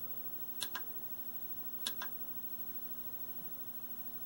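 Push-buttons on a digital TV converter box clicking as they are pressed and released: two quick double clicks about a second apart, over a steady low hum.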